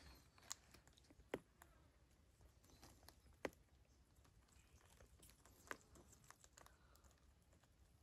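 Near silence: faint outdoor background with a few faint, sharp clicks spread over several seconds.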